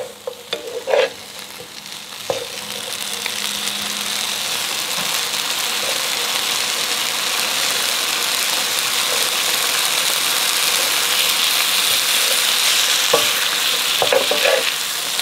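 Stir-fry of beef, rice noodles and vegetables sizzling in a ceramic-coated electric frypan as the heat is turned up. The sizzle builds over the first few seconds, then holds steady. Wooden spatulas knock and scrape through the food near the start and again near the end.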